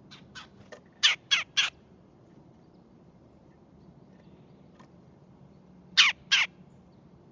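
Red-bellied woodpecker calling: a few faint short calls, then three loud, sharp calls in quick succession about a second in, and two more near the end, each call dropping in pitch.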